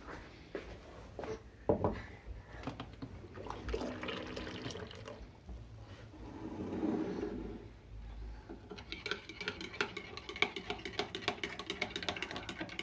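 Liquid pouring into a mug, with a brief hum just before it, then from about nine seconds in a teaspoon stirring coffee in the mug and clinking quickly and steadily against its sides.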